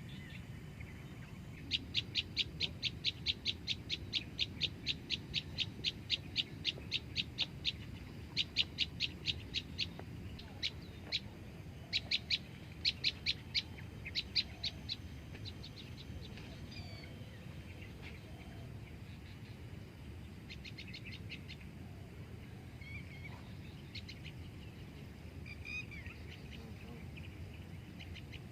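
An animal calling in a rapid, even series of short, sharp, high-pitched notes, about four a second, for some thirteen seconds, then breaking into a few scattered notes. Faint chirps come in later, over a steady low outdoor rumble.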